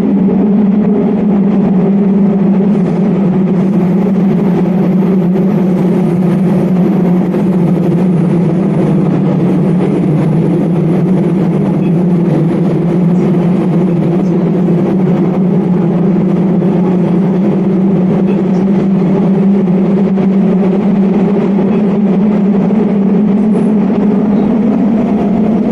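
Hanshin 1000 series electric train running between stations at a steady speed, heard from inside motor car MoHa 1006: a constant rumble of wheels and running gear. A faint high-pitched whine comes and goes in the first half.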